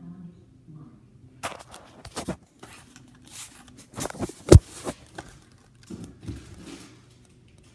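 Irregular taps and knocks of small toy figures being hopped along a granite countertop, mixed with handling rustle, starting about a second and a half in and stopping near the end; the loudest is a single sharp knock about halfway through.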